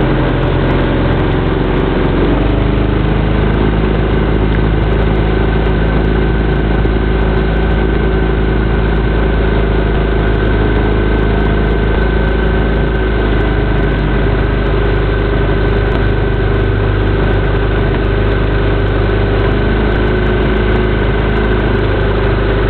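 Outboard motor of a coaching launch running steadily, heard from on board, with a slight change in its note about two seconds in.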